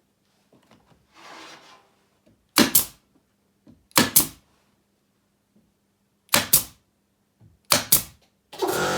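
Nails being driven into new wooden roof boards: four sharp double knocks spaced about a second and a half apart, with a faint scrape just before the first. Music starts near the end.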